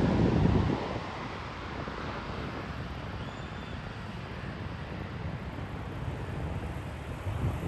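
Jet engines of a Boeing 777-300ER on final approach, a low rumble that falls off about a second in as the airliner draws away, leaving a steady, fainter jet roar that swells a little again near the end.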